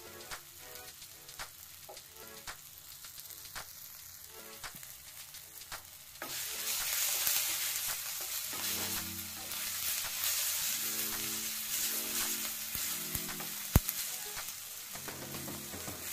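Chopped onion, tomato and chillies frying in oil in a clay kadhai, sizzling while a wooden spatula stirs and scrapes, with regular taps of the spatula against the pot. The sizzle gets much louder about six seconds in, and one sharp knock comes near the end.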